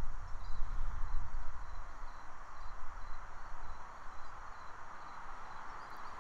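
Outdoor ambience: a steady hiss with faint, small high chirps repeating about twice a second. Wind rumbles on the microphone in the first second or so.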